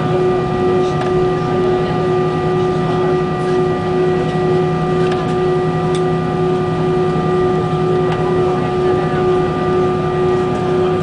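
Airbus A320 jet engines running steadily at idle as the airliner taxis, heard inside the cabin: a constant hum with several steady tones over an even rush of air.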